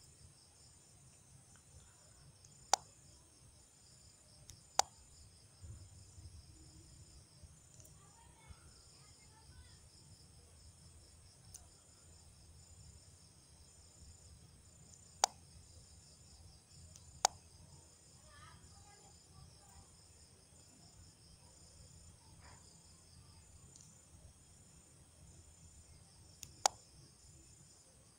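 Faint steady high-pitched electronic hiss with five sharp single clicks spread through it, of a computer mouse being clicked.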